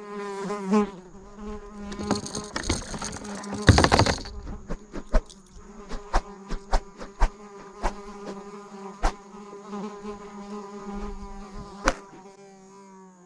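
A flying insect buzzing close by with a steady droning hum, while short sharp clicks and taps come and go.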